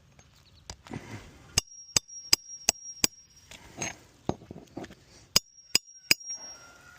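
Hammer driving roofing nails into a replacement roof shingle. A quick run of about five sharp blows, then after a pause three more, each with a high metallic ring.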